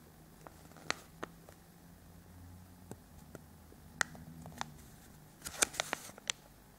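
Hands handling a small folded paper toy leaflet: scattered light clicks and rustles, with a quick run of them near the end.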